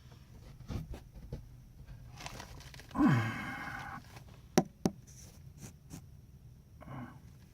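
A man's breathy sigh with a falling pitch about three seconds in, among a few light knocks and sharp taps.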